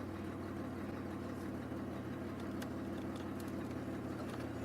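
2002 Chevy Malibu's engine idling steadily, with a few faint clicks.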